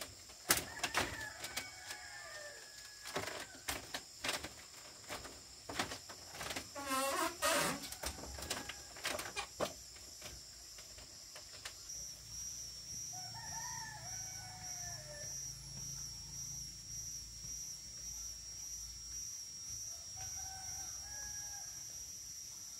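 A rooster crows once, a wavering call about seven seconds in, and chickens cluck a few times later. Sharp knocks and clicks sound through the first ten seconds.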